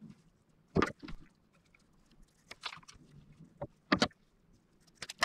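Leather strap being handled and cut into short lengths: a handful of sharp clicks and snips at irregular intervals.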